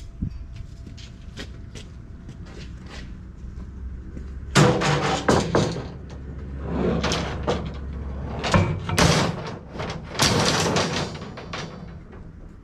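A run of loud knocks and clatters lasting several seconds, over a low steady hum.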